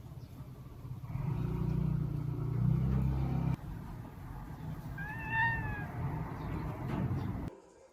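Domestic cat giving one short meow that rises and falls in pitch, about five seconds in, after a low rumbling in the first few seconds.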